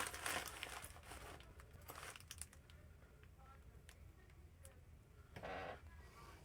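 Faint rustling and crinkling of packets and packaging being handled, with a few light clicks and a short rustle about five and a half seconds in.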